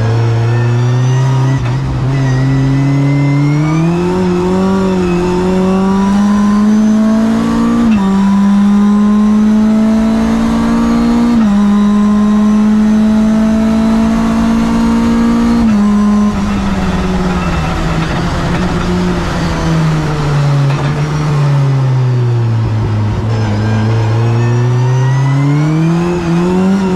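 Mitjet 2L race car's engine heard from inside the cockpit, pulling hard up through the gears: its pitch climbs, drops sharply at two upshifts about 8 and 11.5 seconds in, then falls steadily as the car slows for a corner before climbing again near the end.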